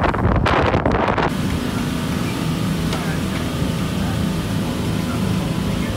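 Wind buffeting the microphone, then, about a second in, a sudden change to a motorboat under way: the engine's steady drone with wind and water rushing past the hull.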